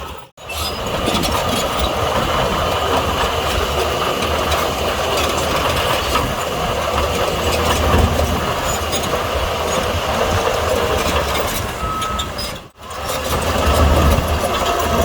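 Heavy diesel earthmoving machinery running under load, a steady low engine drone with metallic clanking and rattle. The sound drops out sharply twice, just after the start and near the end.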